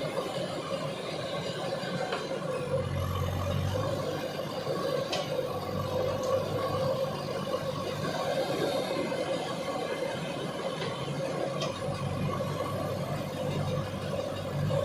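Diesel engine of a JCB 3DX Super backhoe loader running steadily, with a few faint clicks over the drone.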